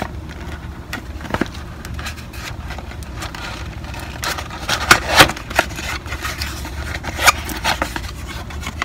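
Small cardboard shipping box being opened by hand: irregular scraping and rubbing of cardboard with a few sharper clicks and snaps, the loudest about five seconds in and again a little after seven.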